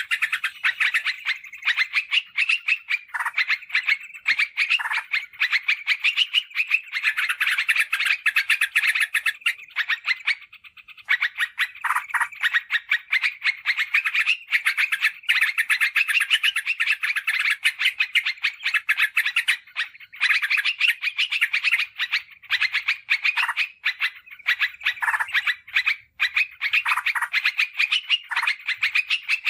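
Yellow-vented bulbul (trucukan) singing: a fast, dense run of chattering notes that hardly pauses, with one short break about ten seconds in.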